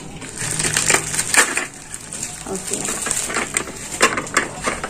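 Crinkling and rustling of plastic packaging being pulled off a plastic spice-jar organizer set, in a dense irregular run of crackles with a short lull midway.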